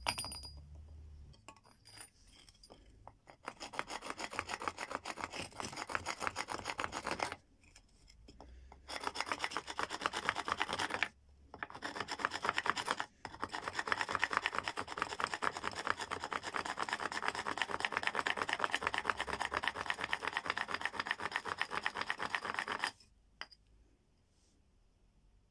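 An animal bone being ground against a rough stone in rapid back-and-forth rasping strokes, abrading it into shape for a dagger. The scraping comes in several long bouts with short breaks and stops a little before the end.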